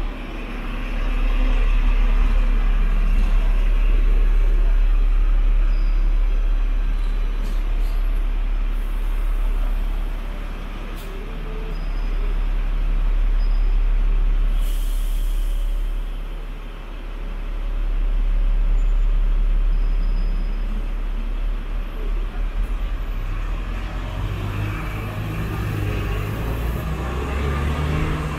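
Hong Kong double-decker tram running along the street, heard from on board: a steady low rumble of the car on its rails that swells and eases several times. A short hiss of air about halfway through.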